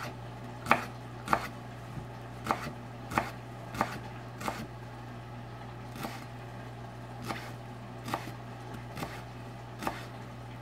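Knife slicing through a rolled bundle of mint leaves into chiffonade, each cut ending in a sharp knock on the cutting board. About a dozen steady strokes, roughly one every two thirds of a second, louder in the first few seconds and slowing a little later.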